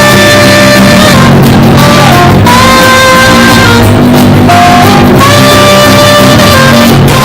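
Live band playing rock-style music with guitar and drum kit, held melody notes over a steady beat. Recorded through a mobile phone, the sound is loud and overdriven, with very poor quality.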